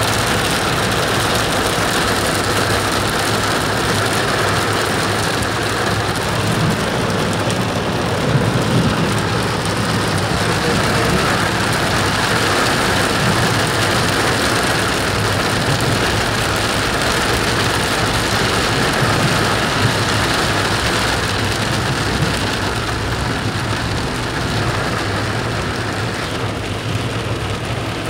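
Heavy rain mixed with hail pelting a car's roof and windshield, heard from inside the cabin as a dense, steady hiss over the low hum of the car's engine. It eases slightly near the end.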